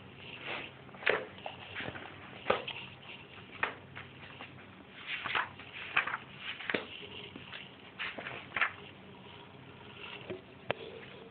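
Pages of a paperback textbook being leafed through: short crisp paper rustles at irregular intervals, about a dozen in all.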